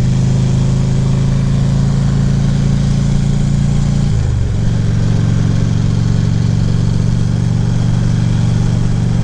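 Harley-Davidson V-twin engine running steadily on the road, with wind noise over the microphone. About four seconds in, the engine note dips briefly, then holds steady again.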